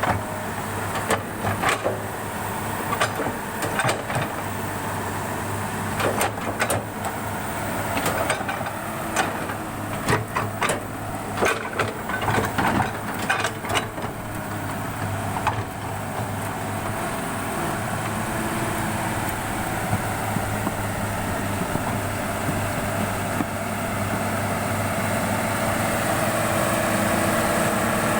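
Excavator's diesel engine running steadily, with a string of sharp knocks and clanks through the first half. The engine grows louder toward the end.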